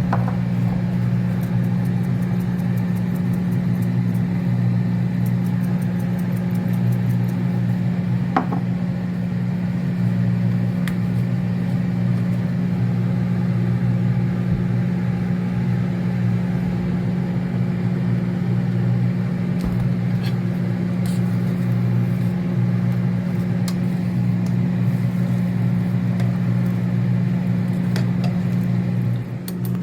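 Steady electric hum of a running kitchen appliance, unchanging in pitch, that dips briefly near the end.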